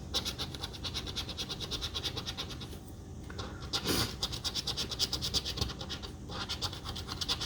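Scratch-off lottery ticket being scratched: quick, even back-and-forth scraping strokes that wear off the latex coating, stopping briefly twice.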